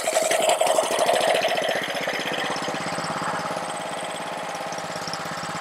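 Honda small engine on a Ryobi 3100 PSI pressure washer running just after being pull-started with a dose of fuel additive. It is a little louder for the first two seconds, then settles into a steady run.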